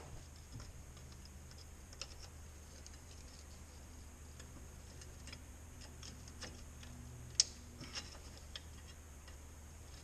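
Faint metal clicks and small scrapes of a flat screwdriver levering between a brake pad and the rotor of a four-piston front caliper, forcing the pistons back, over a low steady hum; one sharper click comes about seven seconds in.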